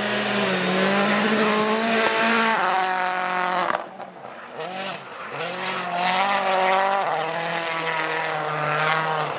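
Citroën C4 WRC rally car's turbocharged four-cylinder engine running hard at racing speed, its pitch climbing and dropping back again and again as it shifts through the gears. The sound breaks off suddenly about four seconds in and returns quieter, then builds again.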